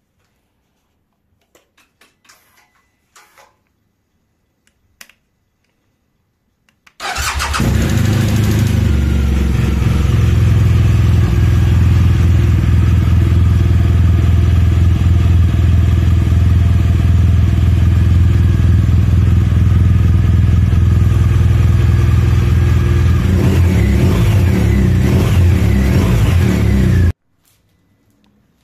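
BMW R1200GS boxer twin on its stock silencer: a few faint clicks, then the engine starts about seven seconds in and idles steadily. It is blipped a few times near the end, then shuts off abruptly.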